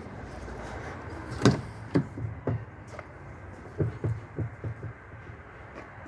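Knocks and thumps on a fire truck's crew cab as someone climbs up into it, about nine in two bursts over a low steady rumble; the first knock is the loudest.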